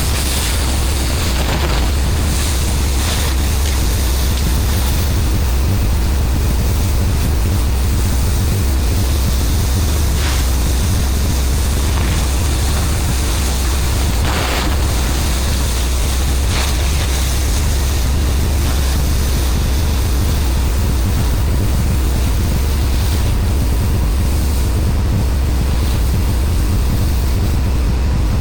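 Pressure-washing rig running: a steady engine drone with the even hiss of high-pressure water spraying.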